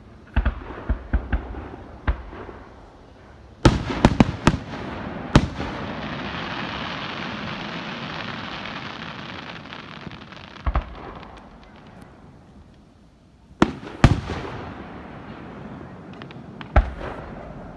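Aerial fireworks shells bursting: sharp bangs coming in quick clusters, several near the start, a volley about four seconds in, and more around eleven, fourteen and seventeen seconds. An even hiss fills several seconds in the middle.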